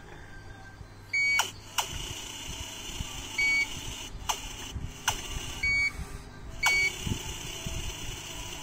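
Amway eSpring water purifier's electronic beeper sounding four short, high-pitched beeps at uneven intervals, with a few sharp clicks between them.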